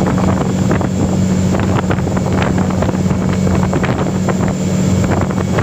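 A steady low engine hum with wind buffeting the microphone.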